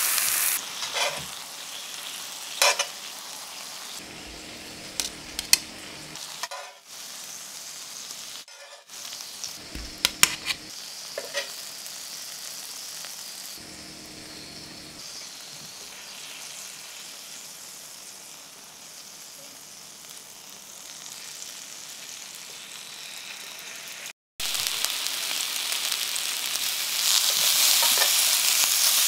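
Oil and butter sizzling in a hot frying pan. Through a quieter middle stretch there are a few sharp clicks. After a short break the sizzle returns louder as cherry tomatoes go into the hot pan, and it grows stronger near the end.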